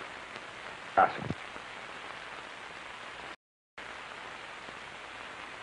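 Steady hiss of an old film soundtrack, with one short spoken word about a second in. The sound drops out completely for about a third of a second a little past the middle.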